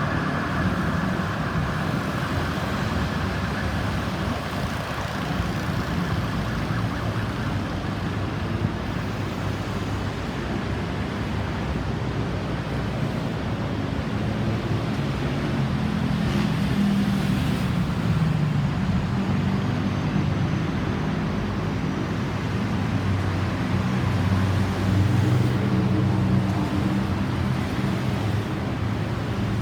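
An emergency-vehicle siren fades out over the first several seconds, leaving steady road traffic. Vehicle engines run and pass, and a heavier engine hum swells in the second half.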